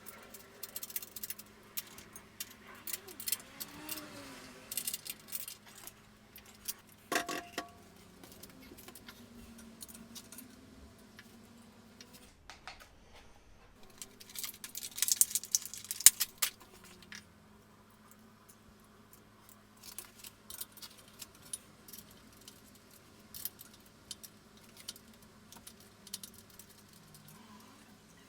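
Scattered metallic clinks and rattles of hand tools and parts as a motorcycle's front wheel axle and brake caliper are refitted. One clink rings briefly about seven seconds in, and the busiest, loudest run of clatter comes a little past halfway.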